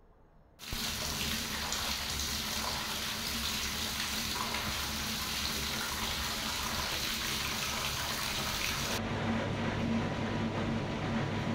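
Bath tap running hard into an empty corner spa bath, a steady rushing gush that starts suddenly under a second in. About nine seconds in it gives way to the spa bath's jets running, the water churning over a steady low pump hum.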